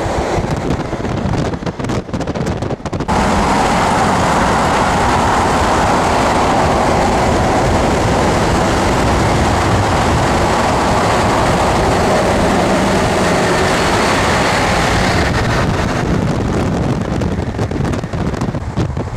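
Highway road and wind noise while driving close alongside a semi tractor-trailer at speed: a steady rushing roar of tyres and air that is loudest from about three seconds in until near the end, with wind buffeting the microphone before and after.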